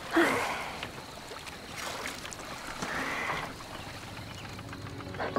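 Water swishing as a small boat is rowed: two soft swishes of the oar in the water, one at the start and one about three seconds in.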